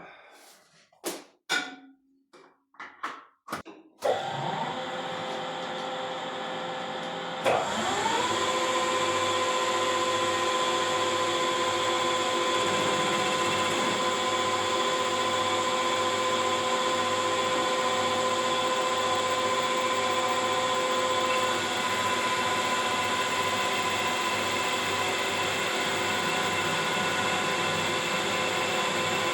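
Metal lathe being switched on: a few clicks and knocks, then a steady hum starts, and after a sharp click the motor spins up to a steady running whine.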